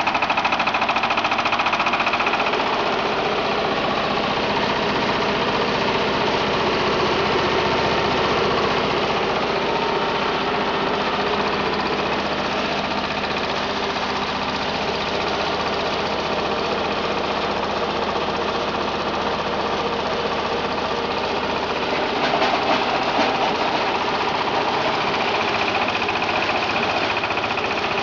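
Engine of a grass chopper and wood shredder machine running steadily, with a slight rise in level a little over three quarters of the way through.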